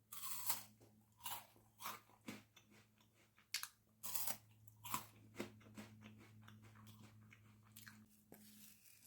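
Biting into a chocolate bar with crunchy Lotus Biscoff biscuit, then chewing it. A crisp crunch comes first, then crunchy chews every half second to a second, growing fainter as the mouthful is chewed down.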